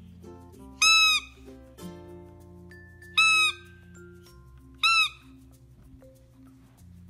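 A squeaky dog toy squeaked three times, about a second in, past three seconds and near five seconds; each is a short, loud, high squeak that rises and falls in pitch. Light background music plays throughout.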